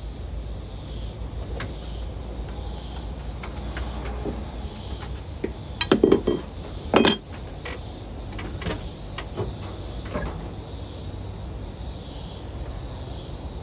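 Steel spanners clinking and knocking against hydraulic hose fittings, with a few sharp metallic knocks, the loudest a cluster about six seconds in and another strike a second later, over a steady low hum.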